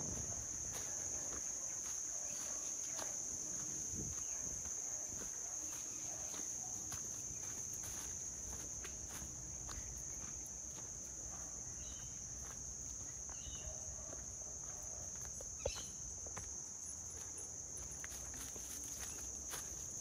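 Insects chirping in a steady high-pitched chorus, with footsteps crunching on leaf litter and grass along a trail. One sharp click stands out about three-quarters of the way through.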